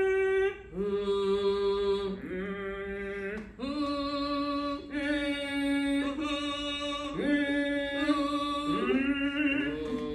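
Two voices doing vocal toning exercises: a string of held sung notes, each a second or two long and sliding up into pitch, sometimes two voices sounding together at different pitches.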